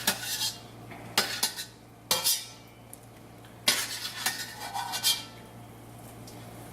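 A metal utensil knocking and scraping against a cooking pot of curry chicken and potatoes, about six separate clanks spread over the few seconds, over a steady low hum.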